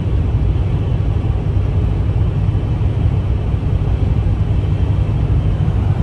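Steady low rumble of a pickup truck driving at highway speed, heard from inside the cab: engine and tyre noise with no change in pace.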